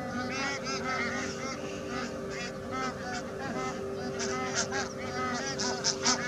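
A large flock of waterbirds calling: many short honking calls overlapping, with a steady hum underneath.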